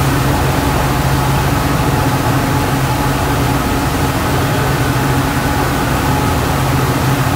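A bank of five outboard motors on a speedboat running at full speed, a loud steady engine drone, with the rush of the churning wake and wind.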